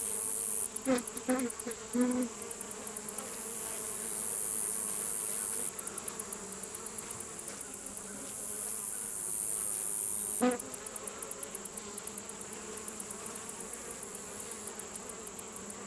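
Honeybees buzzing as a steady hum around an opened hive, with single bees flying close past for louder passes about a second in, around two seconds in and again near ten seconds. The bees are stirred up by the hive being opened.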